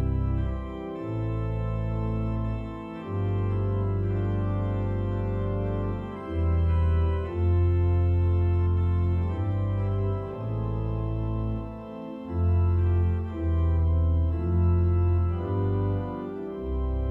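Organ playing slow sustained chords over a deep bass line that moves every second or two, with brief dips in loudness between chords.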